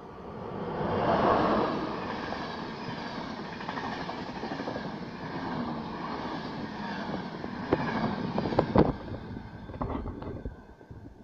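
Electric-hauled RegioJet passenger train passing through a station at speed. The sound swells to its loudest about a second in as the locomotive goes by, then holds as a steady rumble of coach wheels on the rails. Near the end come a run of sharp clicks as the last cars pass, and then it fades away.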